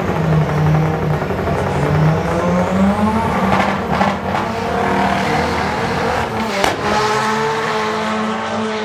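Drag car's engine running hard on the start line, revving up and then launching away down the strip, with a few sharp cracks along the way.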